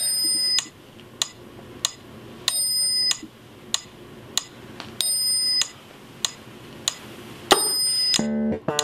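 Smartphone alarm ringing: a short bell-like ring about every two and a half seconds, with a clock-like tick sounding between rings, about one and a half ticks a second. Near the end the alarm stops and plucked bass guitar notes begin.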